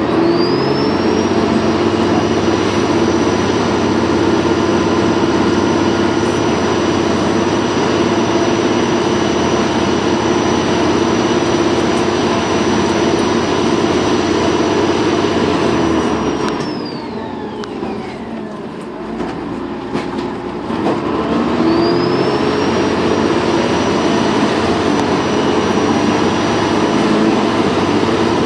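Dennis Trident 2 bus's turbocharger whistling over the diesel engine under load. The high whine rises at the start and holds steady, then falls away in pitch as the engine eases off about 16 seconds in. It rises again about 21 seconds in, holds, and begins to fall near the end.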